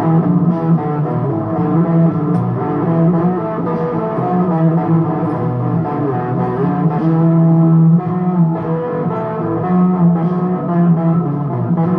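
Electric guitar playing blues, a run of held notes that keeps changing pitch.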